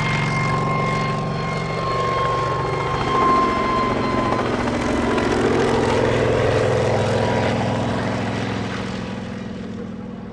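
Kamov Ka-26 coaxial-rotor helicopter, powered by twin radial piston engines, flying a low pass and overhead with engine and rotor noise. A thin steady whine is heard over the first few seconds. The noise swells in the middle and fades toward the end as the helicopter moves away.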